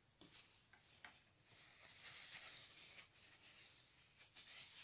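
Plastic spoon stirring and scraping gold metallic slime on a clear plastic plate: faint sticky rubbing, with a few small clicks near the start and again near the end.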